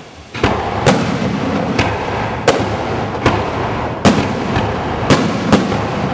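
Fireworks display: a rapid series of loud firework bangs, one to two a second, over continuous crackling and rumbling. The bangs begin about half a second in, after a brief lull.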